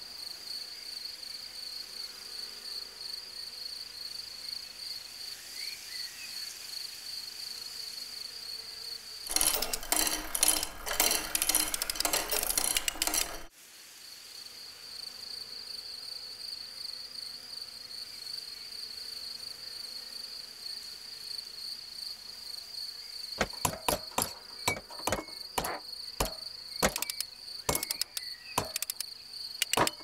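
Cricket-like insects trilling in grass, a steady pulsing high chirr. About nine seconds in, a loud rasping burst cuts over it for about four seconds, and from about twenty-three seconds a series of sharp clicks sounds over the trilling.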